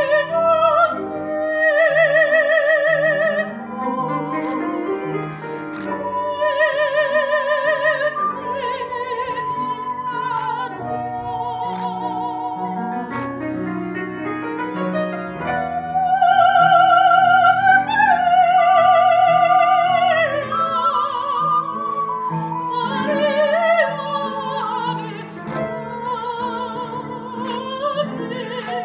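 A woman singing in operatic style with a strong, wavering vibrato, accompanied by an ocarina.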